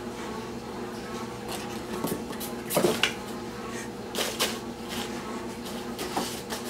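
Kitten scrambling around a cardboard box: irregular scuffs and rustles of its paws on cardboard and paper, loudest a little under three seconds in, over a steady low hum.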